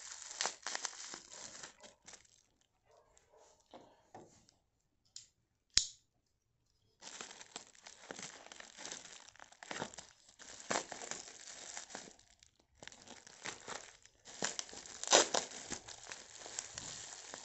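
Bubble wrap and plastic packaging crinkling and tearing as it is pulled apart by hand and cut open with a folding knife. A single sharp click comes about six seconds in, followed by a second of silence.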